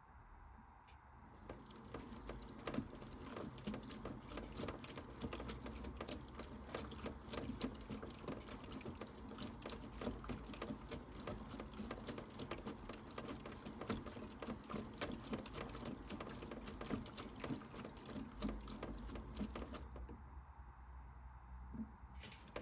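Toy Bosch Logixx 8 washing machine running its wash: the drum turning with water sloshing and a fast patter of small clicks. It starts about a second and a half in and stops near the end.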